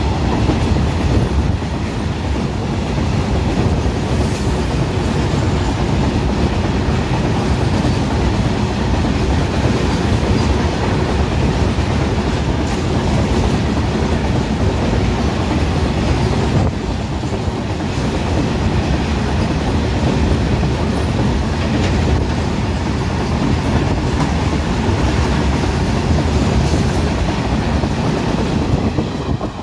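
Open box wagons of a fast freight train rolling past close by: a loud, steady rumble and clatter of steel wheels on the rails.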